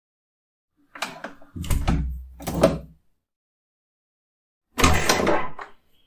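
A door being worked: a couple of latch clicks about a second in, then two heavy low thuds as it swings and shuts, the second near three seconds the louder. Near five seconds another burst of door noise lasts about a second.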